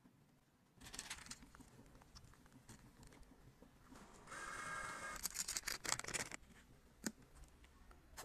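Faint scraping and crackling of a metal blade cutting through pressed glitter eyeshadow, then about a second of steady whirring with a faint tone, followed by a second of dense crackling and a single click.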